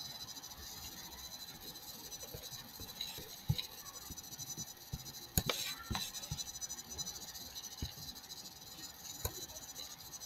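A few sharp computer-mouse clicks, spread out and a second or more apart, over a steady microphone hiss with thin high-pitched electrical whines.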